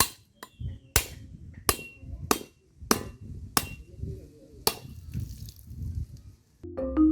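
A metal blade striking a coconut again and again to crack it open: sharp hits about two-thirds of a second apart, several with a brief metallic ring, stopping about five seconds in.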